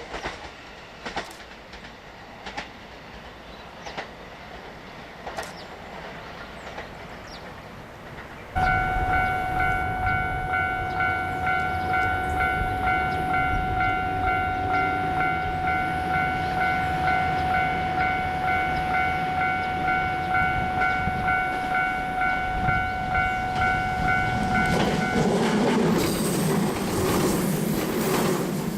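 A Japanese level-crossing warning bell starts abruptly about a third of the way in, ringing in an even, rapid repeat, and stops near the end. As it stops, an electric train running over the crossing takes over with loud rail and wheel noise.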